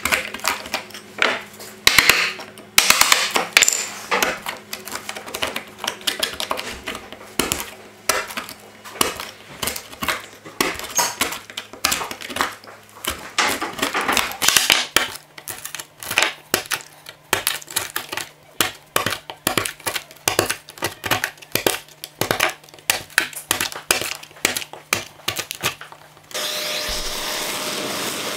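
Screwdriver tip scraping and prying rotten wood out of a crack in an ash slab: a fast, irregular run of scratches and clicks, with crumbs of decayed wood dropping onto the board. Near the end a dust extractor switches on and runs with a steady rushing hiss as its hose nozzle sucks debris from the crack.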